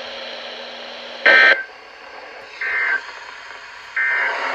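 EAS/SAME digital data tones from a NOAA Weather Radio broadcast: three short warbling bursts about a second apart over radio hiss. This is the end-of-message burst, sent three times to close the severe thunderstorm warning.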